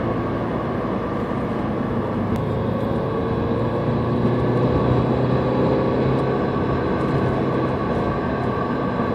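Porsche 968's supercharged four-cylinder engine with its D1R supercharger, running steadily with a low, even drone; a faint tone above it climbs slightly about three to six seconds in.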